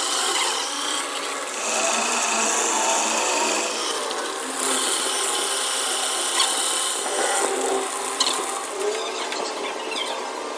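A power tool working metal, a steady grating noise that shifts higher in pitch for a few seconds from about halfway through.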